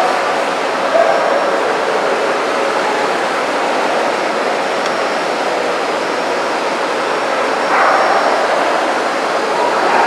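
Steady crowd hubbub of many voices blending together in a large, echoing exhibition hall, with no single sound standing out.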